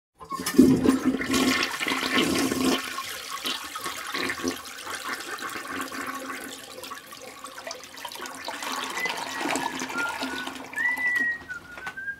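A toilet flushing: a loud rush of water right at the start that tapers off into a quieter steady flow. Near the end a person whistles a few sliding notes.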